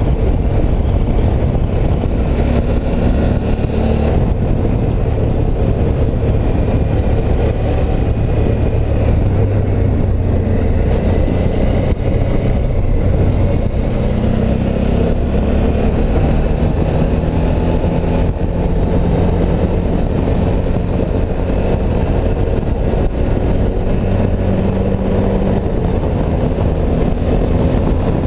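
Suzuki V-Strom motorcycle's V-twin engine running at speed, its note rising and falling several times with throttle and gear changes.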